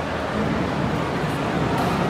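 Steady crowd noise, with indistinct voices among the milling fans and no single sound standing out.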